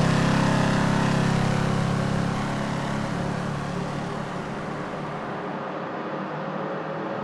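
Car engine sound effect running at a steady pitch, slowly fading down.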